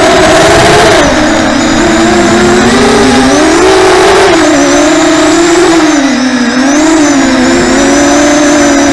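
Brushless motors and propellers of an FPV racing quadcopter on a 3S lipo, heard through its onboard camera: a loud, steady buzz whose pitch rises and falls with the throttle, with a thin high whine over it.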